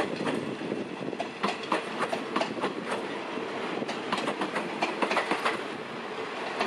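Passenger coaches of a train rolling past, their wheels clicking and knocking over the rail joints in an irregular clickety-clack over a steady rumble.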